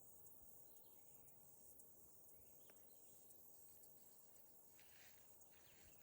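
Near silence: faint outdoor ambience with a steady high insect hum and a few faint, brief bird chirps.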